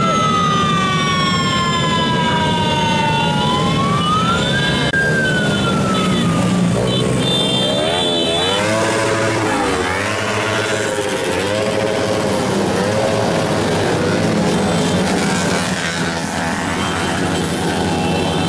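Sirens sweeping up and down in pitch over the continuous engine noise of a long motorcycle convoy riding past. In the middle, a siren switches to a faster rise-and-fall that repeats about once a second.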